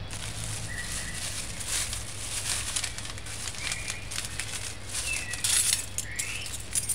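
Plastic spice packet crinkling and a metal measuring spoon clinking as hands handle them, louder about five and a half seconds in. Short bird chirps repeat in the background over a steady low hum.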